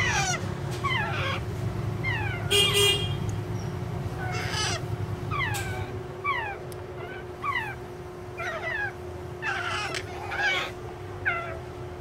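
Alexandrine parakeet chicks calling: a string of short, downward-sliding chirps, several a second, with one louder, harsher squawk about two and a half seconds in.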